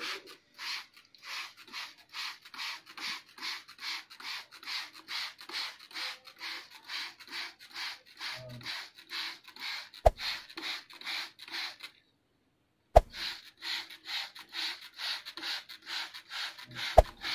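Hand-pumped trigger spray bottle misting water, each trigger pull a short hiss, about three a second. The water is sprayed over straw oyster-mushroom beds to keep them moist. A few sharp clicks stand out near the middle and end.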